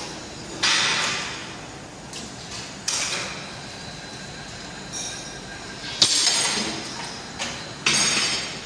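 Steel pipes clanking against each other and the metal basket as they are handled, four sharp metallic clanks that ring on briefly.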